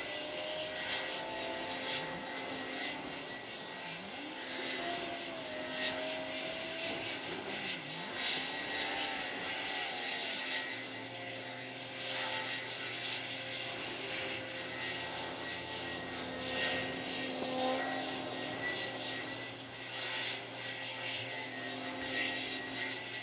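Steady drone of heavy diesel machinery as a gut ship's clamshell grab crane swings and lowers its grab of sand, with a lower hum joining about halfway through.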